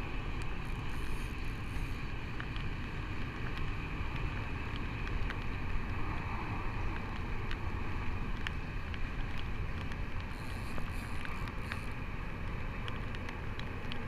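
Steady low rumble of wind and water around a small boat on the river, with scattered faint sharp clicks.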